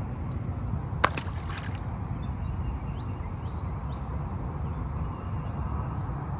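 An undersized catfish is tossed back into the river, landing with one sharp splash about a second in, and the water settles afterwards. A steady low rumble of wind on the microphone runs underneath, with a few faint high chirps in the middle.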